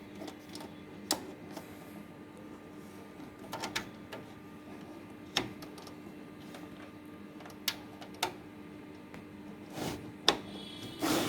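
Cables being plugged back into the rear ports of a desktop PC: scattered clicks and knocks of connectors seating, a second or more apart, over a faint steady hum.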